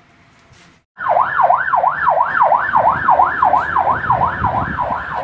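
A siren yelping, starting suddenly about a second in, its pitch sweeping rapidly up and down about three times a second.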